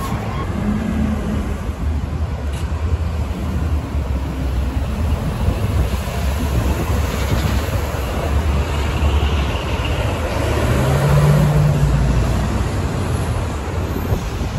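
Buses and traffic passing on a street: a steady diesel engine rumble that swells to its loudest about eleven seconds in as a vehicle goes by.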